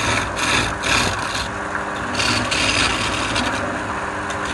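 A turning tool cutting a spinning wooden blank on a wood lathe: a rough, rasping hiss that swells and fades in repeated strokes as the tool is worked into the wood, over the steady hum of the running lathe.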